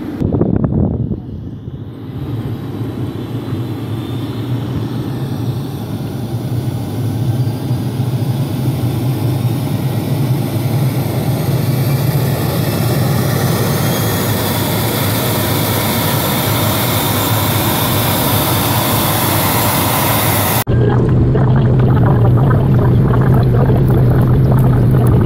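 ATR 72-500 turboprop engine running on the ground, a loud steady noise with a faint whine slowly rising in pitch. About 21 seconds in, it cuts abruptly to the engine and propeller heard from inside the cabin, a steady low drone as the propeller turns beside the window.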